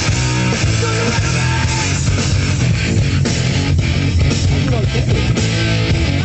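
Loud rock music with distorted electric guitar and drums, playing continuously.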